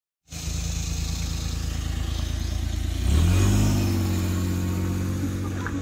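An engine running steadily, then revving up about three seconds in, rising in pitch and getting louder before holding at the higher speed.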